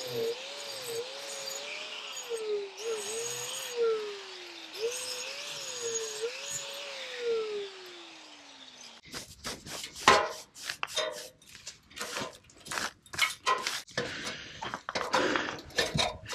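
4.5-inch angle grinder with a tuck-pointing blade grinding out a mortar joint in brick, its whine dipping and rising as the blade bites and eases, then winding down slowly about seven seconds in. After that comes a run of sharp knocks and scuffs as the ladder is climbed down.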